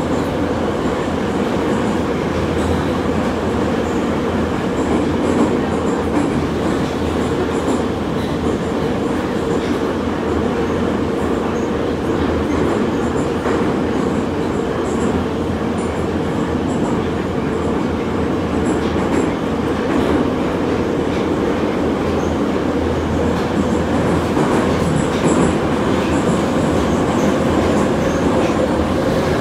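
Minsk Metro train running at speed through a tunnel, heard from inside the car: a loud, steady rumble of wheels on rail and traction motors, with a constant hum running through it.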